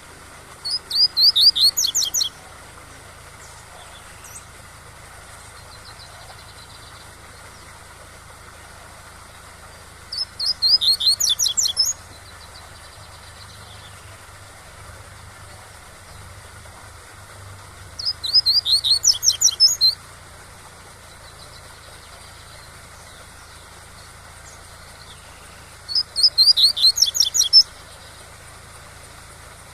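Double-collared seedeater (coleiro) singing its 'tui-tui' song: four short phrases of quick, high repeated notes, one about every eight seconds. A steady waterfall rush runs underneath.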